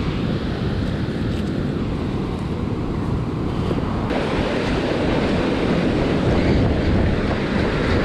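Small ocean waves washing and wind buffeting a point-of-view camera's microphone in a steady rush of noise. About halfway through the noise suddenly becomes fuller and a little louder.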